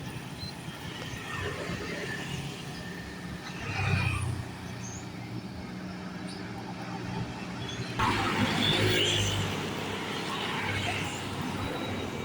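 Large diesel bus engine running, with a brief loud low burst about four seconds in. From about eight seconds in the engine grows suddenly louder and rougher as a departing bus pulls out, then eases off.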